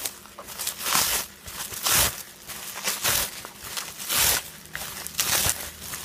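Plastic bubble wrap rustling and crinkling as it is unwound by hand, in swells about once a second.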